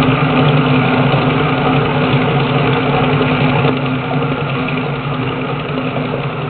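Motor-driven grinding mill with a top feed hopper running steadily: a constant low hum under a dense whirring rush, easing a little in level after about four seconds.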